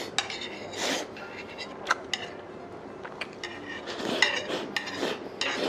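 Metal chopsticks clicking and scraping against a plate held up to the mouth while eating, with scattered short clicks, the sharpest about two seconds in.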